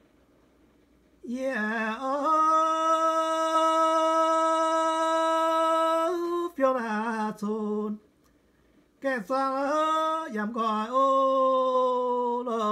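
A single unaccompanied voice chanting a traditional Iu Mien song in slow drawn-out phrases, holding one note steady for about four seconds before sliding down. It breaks off twice for short breaths, right at the start and about two thirds through.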